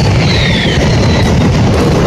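Mascletà firecrackers going off in a dense, continuous barrage of bangs that merge into one rumble, with whistles falling in pitch through the first second.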